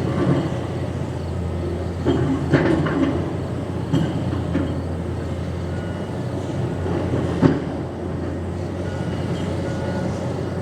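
Heavy demolition machinery running with a steady low engine drone, with a few clanks and knocks of metal and debris, the loudest about seven and a half seconds in.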